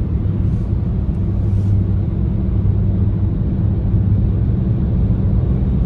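Car cabin noise while driving: a steady low rumble of the tyres and engine heard from inside the car.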